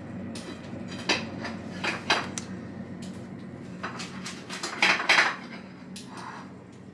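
Plates and cutlery clinking and knocking: a handful of sharp clinks spread over a few seconds, the loudest about five seconds in, over a low steady hum.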